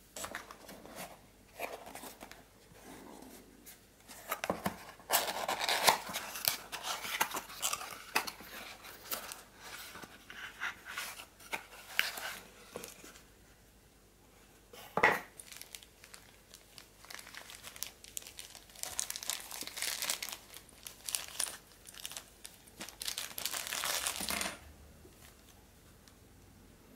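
Hands opening a small kraft cardboard box and handling the packaging inside: irregular rustling, scraping and crinkling of cardboard and wrapping, with one sharp knock about halfway through. It goes quieter near the end.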